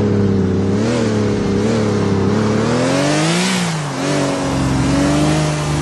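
Motor vehicle engine running and revving: its note wavers, climbs to a peak about three and a half seconds in, then drops back and settles.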